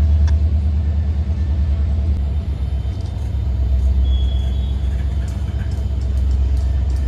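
Diesel-electric freight locomotive running with a steady low rumble, with a brief faint high squeal about four seconds in.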